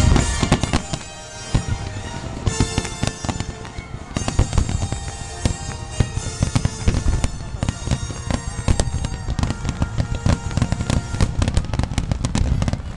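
Fireworks display: a loud bang right at the start, then a dense, unbroken run of shell bursts and crackling, several bangs a second, over music from loudspeakers.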